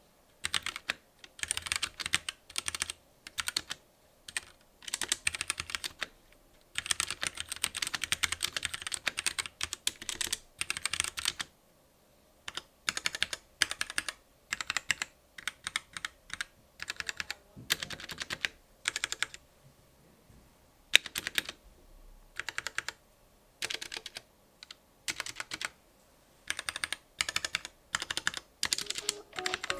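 Typing on a Womier K66 mechanical keyboard with linear Gateron Red switches and an acrylic case, in bursts of fast keystrokes broken by short pauses. The keys make soft, quiet clacks with minimal key rattle.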